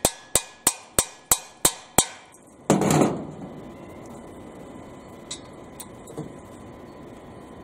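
Small hammer tapping a socket down onto a rounded-off exhaust manifold bolt: seven sharp metallic strikes, about three a second. About three seconds in comes one louder, rougher knock, and a few light clicks follow near the end.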